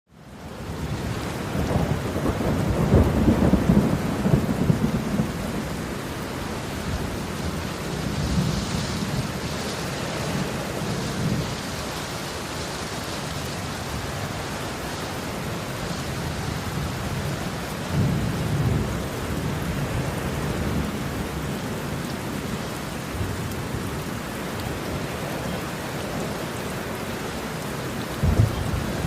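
Heavy rain pouring steadily, with low thunder rumbling several times, the loudest roll a few seconds in.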